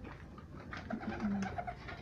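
Domestic pigeon cooing: one low coo in two short parts about halfway through.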